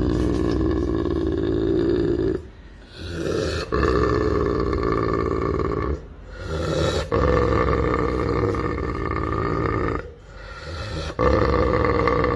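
Anatolian shepherd dog grumbling back in long, low, throaty groans, four drawn-out ones each lasting a couple of seconds, with short breaks between.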